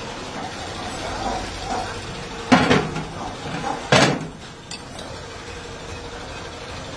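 Metal clanking as freshly cast aluminium pans and mold parts are handled: two loud clanks with a short ring, about a second and a half apart, then a few lighter clinks.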